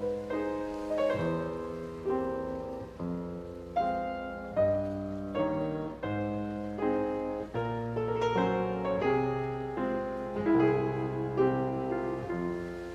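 Solo piano music: a slow, even series of struck chords and melody notes over bass notes, each dying away before the next.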